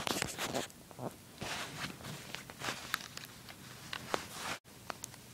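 Handling noise: rustling and scattered sharp little clicks as in-ear earbuds and their cord are picked up and fiddled with on a bed sheet.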